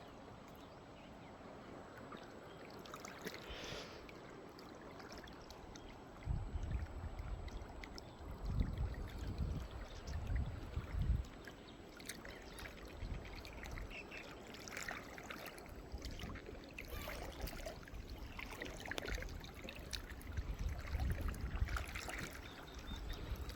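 A steady hiss of a thin trickle of water at a nearly dry waterfall. Loud low rumbles of wind on the microphone twice, for a few seconds each.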